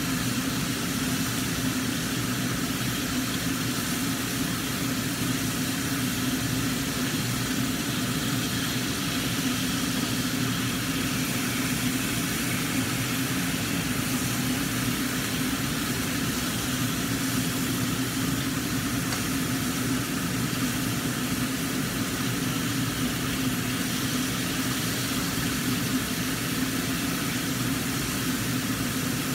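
Kitchen range hood fan running with a steady hum, over the hiss of mackerel frying in oil in a covered wok on a gas burner.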